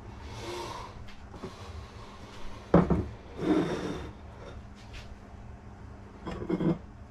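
Kitchen handling sounds on a worktop: a sharp knock a little under three seconds in, then a short scraping clatter as a ceramic bowl is set down, and another brief clatter near the end. A faint steady hum runs underneath.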